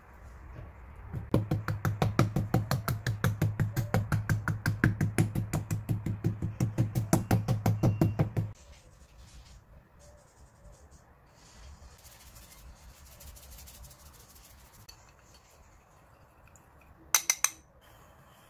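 Kitchen knife striking pork loin rapidly against a wooden cutting board, about seven strokes a second for some seven seconds, chopping the meat to tenderize and flatten it for tonkatsu. A brief clatter of a few sharp clicks near the end.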